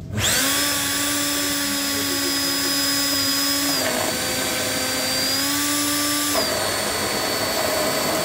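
Immersion blender motor running in a stainless steel jug, blending liquid cream and oil into an eggless mayonnaise emulsion. It starts right at the beginning with a steady whine that drops in pitch about four seconds in, rises again about a second later, and drops again a little past six seconds.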